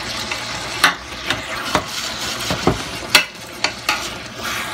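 A metal spoon scraping and knocking against a black skillet, about seven irregular clicks, as sauce is spooned over grouper steaks, over the steady sizzle of the coconut curry sauce simmering with okra and peppers.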